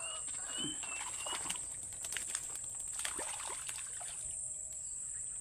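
A steady, high-pitched drone of insects, with short bird chirps in the first second or so. Small splashes and sloshing come from a shallow swamp pool being fished with a pole rod.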